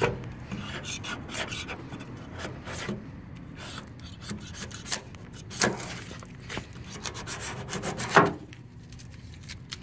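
Razor blade scraping paint off a 1972 Mercury Cougar's body panel in a run of short, uneven strokes, two of them louder, one a little past halfway and one near the end. The base coat is coming away easily in strips.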